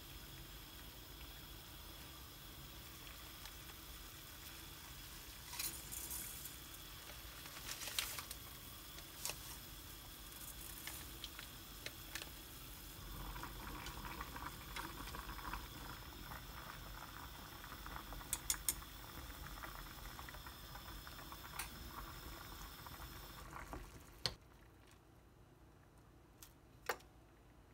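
Water at a rolling boil with spaghetti cooking in a stainless steel saucepan, with scattered light clicks of wooden chopsticks against the pot as the noodles are stirred. The steady bubbling cuts off suddenly near the end, leaving only a few more clicks.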